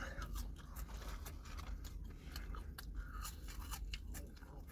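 A person chewing food close to the microphone, with many small, sharp mouth clicks, over a low steady hum.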